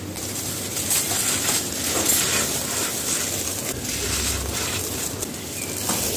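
Dry cement chunks crumbling and crunching by hand: a continuous gritty crackle with many irregular sharp crunches.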